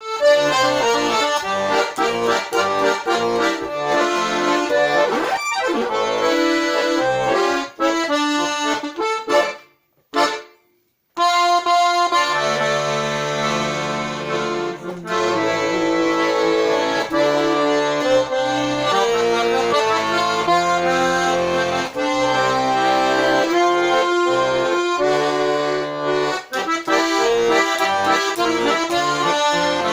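Russian garmon, a button accordion, playing a folk tune without singing, with a short break about ten seconds in before the playing resumes.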